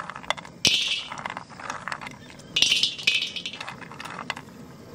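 Cashew nuts poured by hand from a plate into a large iron wok, clattering and skittering on the metal in two rattling bursts, about a second in and again at about two and a half seconds, with single nuts clicking down in between.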